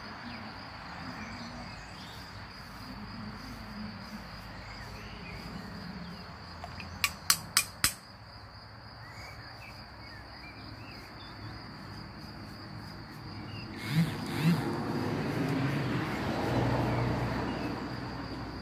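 Steady high trill of crickets with a few bird chirps. About seven seconds in come four sharp clicks in quick succession, and near the end two more clicks and a scratchy scraping as a disposable razor is drawn over stubble.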